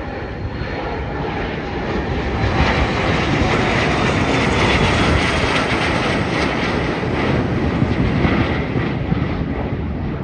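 Twin rear-engined business jet climbing out just after takeoff and passing overhead: loud turbofan jet noise that swells about two seconds in, holds, and eases a little near the end, with a faint high whine sliding down in pitch as it goes by.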